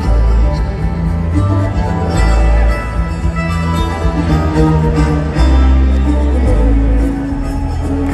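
Live string band playing an instrumental passage: upright bass, acoustic guitar, mandolin and electric slide guitar, with no singing.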